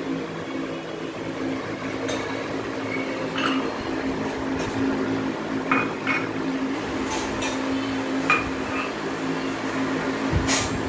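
Ceramic tea cups clinking and knocking as they are taken from a kitchen drawer and set down one by one on a countertop, a string of light knocks spread out irregularly, over a steady low hum.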